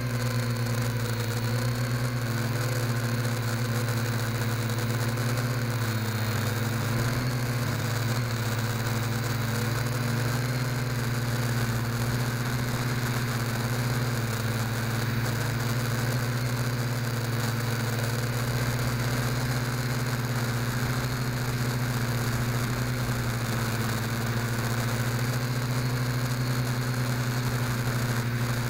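Small quadcopter's motors and propellers running with a steady buzzing whine, heard through its onboard camera's microphone, with a constant hiss over it.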